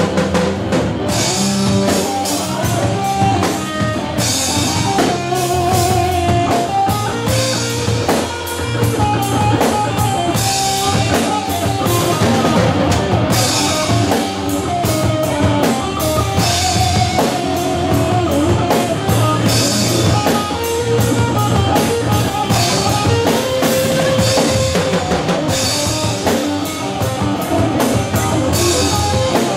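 Rock song with drum kit and electric guitar, an instrumental stretch with a steady beat.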